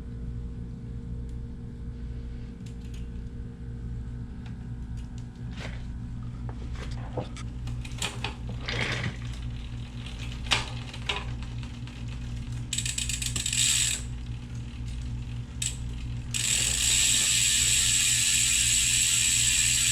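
Bicycle freewheel ratcheting as the wheel spins: scattered clicks, then a short buzzing spin, then a loud, steady ratcheting buzz from about three-quarters of the way in. A steady low hum runs underneath.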